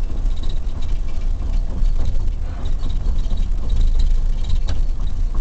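Car running, a low steady rumble of engine and road noise heard from inside the cabin, with a brief click near the end.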